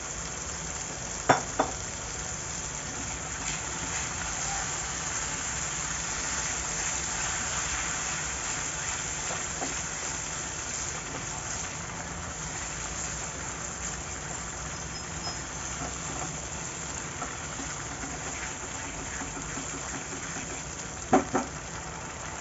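Chicken frying in a pan of masala, a steady sizzle. Two pairs of sharp knocks, a utensil against the pan, come about a second in and again near the end.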